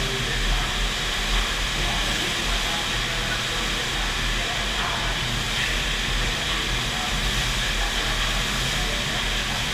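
FlowRider wave machine running: a thin, fast sheet of pumped water rushing steadily up the padded ramp, a constant hissing roar of water with a low rumble underneath.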